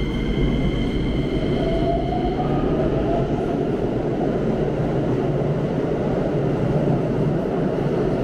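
Keikyu commuter train running along an underground station platform: a steady rumble of wheels and motors, with a faint rising motor whine about two seconds in.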